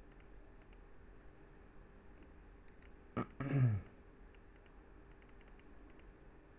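Faint, scattered computer mouse and keyboard clicks. About three seconds in, a short, louder low vocal sound falling in pitch cuts across them.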